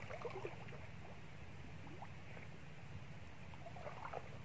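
Faint outdoor ambience: a steady low rumble with a few faint short chirps about half a second in and again near the end.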